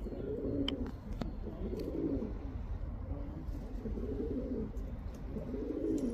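Male pigeon cooing: about five low, wavering coo phrases in a row, his call to a female, over a steady low rumble.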